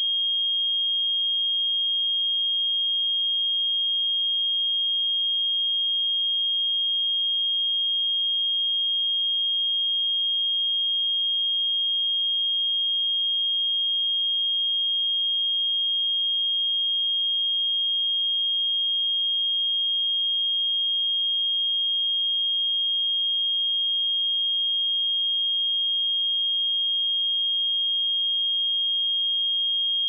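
A pure 3243 Hz sine-wave test tone, one steady high-pitched pitch held at constant level.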